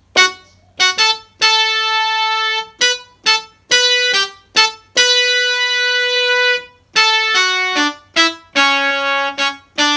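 Yamaha portable keyboard playing a slow single-note melody in D major, one note at a time, with a few notes held for over a second.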